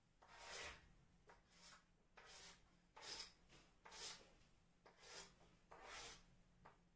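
Chalk scraping across a chalkboard as lines are drawn: a series of faint strokes, roughly one every three-quarters of a second.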